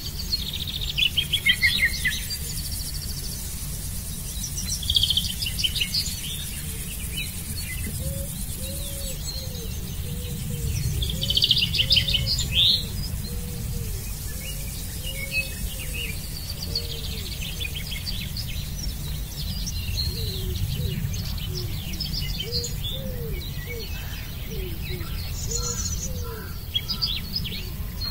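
Songbirds singing outdoors: short bursts of quick, high trilled song about a second in, around five seconds, and loudest around eleven to thirteen seconds, with softer calls later on. A row of soft, repeated low notes runs through the middle, over a steady low rumble.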